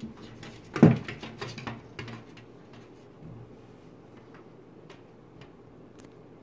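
Knocks and taps on a glass table top as a kitten paws at it from below: one loud thump about a second in, then a run of lighter taps and scuffs.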